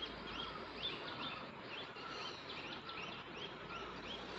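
A small bird chirping over and over in short, quickly rising notes, about three a second, with a lower whistled note now and then, over a steady hiss.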